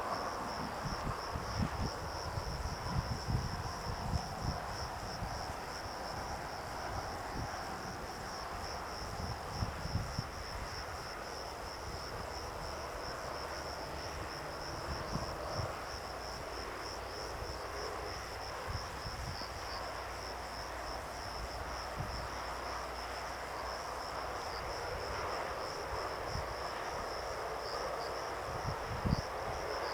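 A steady, fast-pulsing high-pitched chorus of insects chirring, with low wind buffeting on the microphone now and then.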